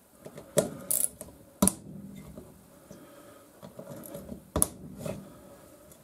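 Hand tools working fasteners loose on a Piaggio Ciao M1M moped engine: a few sharp metal clanks, the loudest about a second and a half in and again about four and a half seconds in, with faint ratchet-like ticking between.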